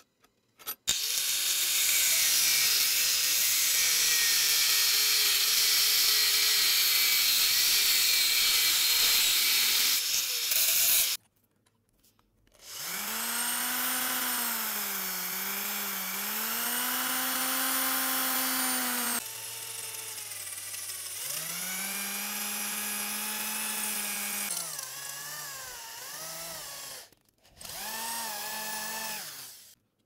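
Electric drill boring into the steel jaw of a pair of pliers clamped in a vise, running in several bursts of a few seconds each, its motor pitch sagging and recovering as the bit bites. Before this comes about ten seconds of a louder, steady harsh hiss from a power tool.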